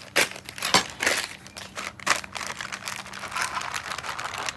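A plastic bag of refrigerated shredded hash browns crinkling and rustling as it is cut open and its potatoes are shaken out into a bowl. There are several sharp crinkles in the first couple of seconds, then a softer, continuous rustle.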